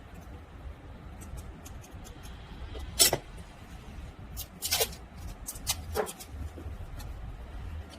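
Scattered sharp clicks and knocks of tools and hardware being handled during hand repair of a leather bag, the loudest about three seconds in, over a low steady hum.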